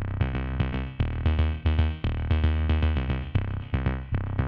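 Electronic background music with a drum-machine beat, synthesizer notes and a heavy bass line.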